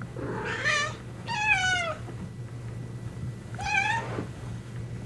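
Tabby kitten meowing three times: two meows close together in the first two seconds and a shorter one near the end, each falling in pitch. A faint, steady low hum runs underneath.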